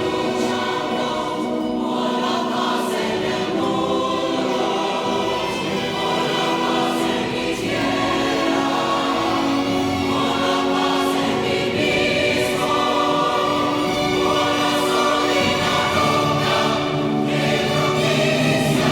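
A choir singing held chords with an orchestra accompanying, the sung notes changing every second or two.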